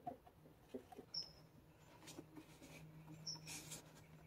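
Faint handling noise: a rubber intake hose giving a couple of short high squeaks, with soft clicks and a brief rustle, as it is worked by hand onto the throttle body.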